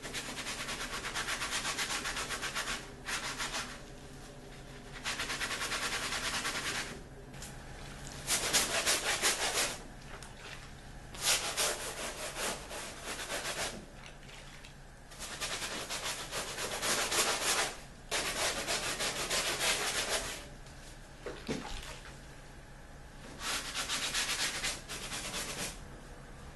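A scrub brush scrubbing wet upholstery fabric in spells of one to three seconds, a rasping scratch of bristles on cloth with short pauses between.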